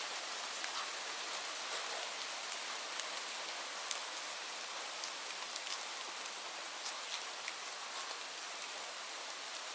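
Steady rain falling on leaves: an even hiss with scattered sharp ticks of single drops striking.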